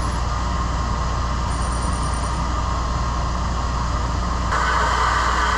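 Valve-seat cutting machine running, its spindle turning a seat cutter in an exhaust valve seat of a cylinder head: a steady hum and hiss that grows louder and brighter about four and a half seconds in.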